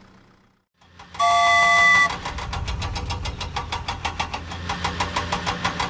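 A short horn-like honk of several steady tones, then a vehicle engine starting and running with an even, rapid chug of about five beats a second.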